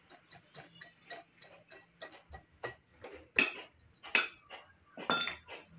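Sharp metal clicks and taps from hand tools working on motorcycle engine parts, about four a second and uneven, with three louder knocks in the second half.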